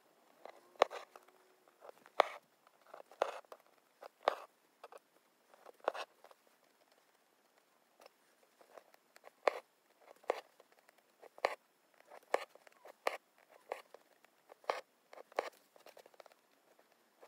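Hand embroidery on fabric stretched tight in a hoop: the needle pricks through and the thread is pulled after it. It makes irregular soft taps and short rasps about once or twice a second, with a brief pause near the middle.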